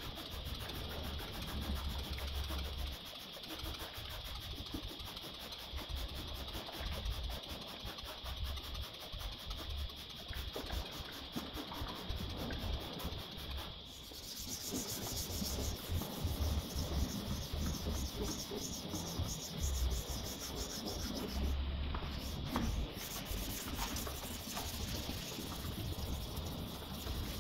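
Hand wet sanding of a primed Audi A6 4F body panel: a sanding pad rubbed back and forth over the wet primer, making continuous rubbing and scraping. The texture of the rubbing changes about halfway through.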